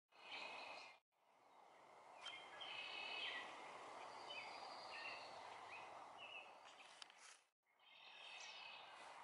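Faint woodland ambience with small songbirds chirping and singing in short phrases off and on over a soft steady hiss. The sound drops out briefly twice, about a second in and again about two seconds before the end.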